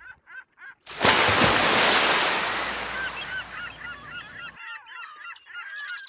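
Geese honking in short repeated calls. From about a second in, a loud rushing noise covers them for roughly three and a half seconds, then stops abruptly, and the honking carries on thick and overlapping.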